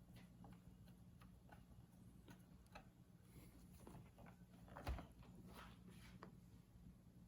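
Faint, irregular small clicks of a screwdriver driving screws into a laptop's plastic back cover, with one louder knock about five seconds in, over a low steady hum.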